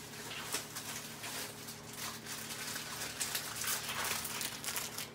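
Snack packaging being handled off-frame: irregular crinkling and rustling of the plastic and foil wrappers, over a low steady hum.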